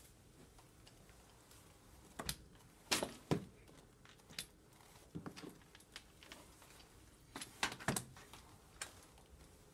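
Spray mop worked over a hardwood floor and along the stair post, baseboards and furniture, giving scattered light clicks and knocks; the loudest come about three seconds in and again about eight seconds in.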